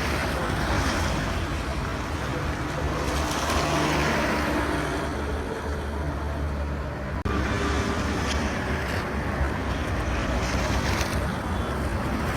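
Street ambience with road traffic going by and a steady rumble of wind on the microphone, broken by a sudden short dip about seven seconds in.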